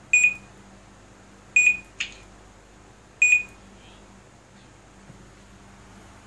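A Crystal Focus lightsaber sound board beeping through its small speaker: three short, high beeps about a second and a half apart, with a sharp click just after the second one.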